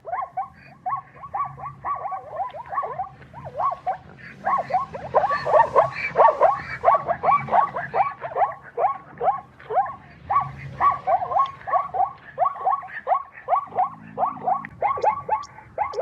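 Zebra calling: a rapid run of short barks, each falling in pitch, about four to five a second without a break, loudest a little before the middle.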